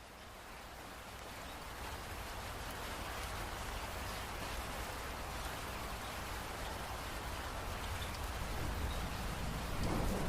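Steady rain falling, a dense even patter of drops that fades in over the first couple of seconds and then holds level.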